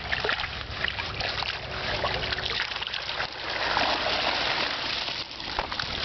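Water pouring and splashing off a fishing keepnet as it is hauled up out of the pond, with scattered splashes and a heavier gush about four seconds in.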